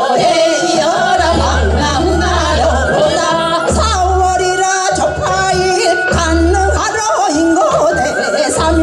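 Women singing Seodo sori, Korean folk song of the northwestern provinces, into microphones with a wavering, heavily ornamented voice. Beneath the voice is an accompaniment whose deep bass comes in and drops out every second or two.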